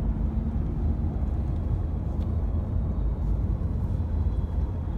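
Steady low rumble of road and engine noise inside the cabin of a Mercedes E-Class estate taxi as it drives.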